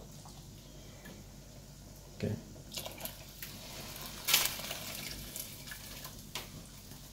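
Hot water poured from a cup into a pot of rice and spiced broth, a soft splash and trickle, after a faint knock of the cup about two seconds in.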